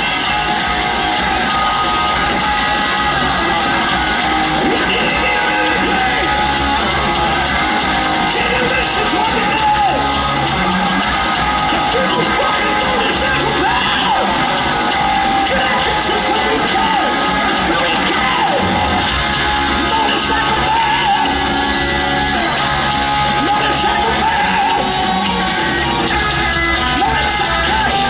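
Heavy metal band playing live: distorted electric guitars, bass and drums, with a male singer's vocals over them.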